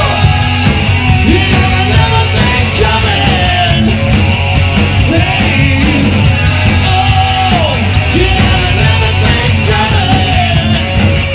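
Live rock band playing a hard-rock song at full volume: electric bass and drums driving under bending lead lines, with a singer's voice at times.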